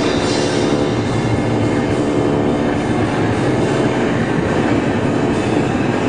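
Noise music: a loud, continuous drone of electronic noise and experimental guitar improvisation, with steady held low tones under a dense hiss and no breaks.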